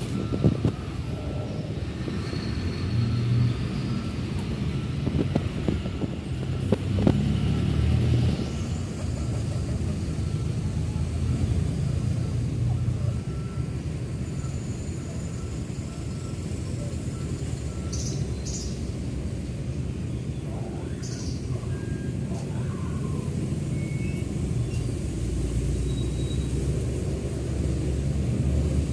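Outdoor ambience: a steady low rumble, like distant traffic, with a few faint clicks in the first several seconds and brief high chirps around the middle.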